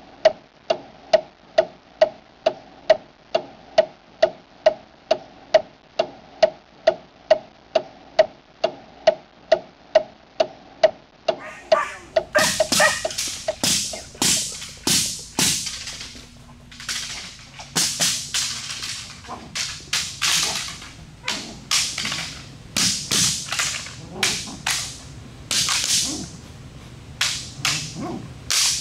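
A steady run of sharp, evenly spaced ticks, nearly three a second, for about the first twelve seconds. After that come irregular loud cracks and swishes of a protection-training agitation stick as it is swung and struck beside a biting puppy.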